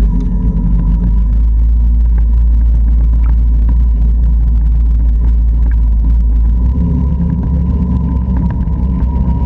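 Can-Am Outlander 650 ATV's V-twin engine running while the quad is ridden, a loud steady low rumble that shifts about two-thirds of the way through.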